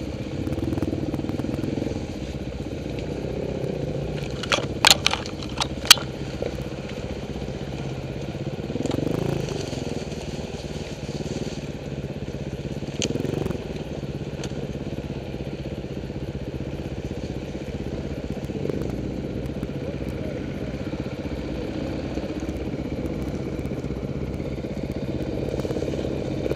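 Dirt bike engines running at low speed on a rough forest trail, swelling now and then as the throttle is opened. Several sharp knocks about five seconds in.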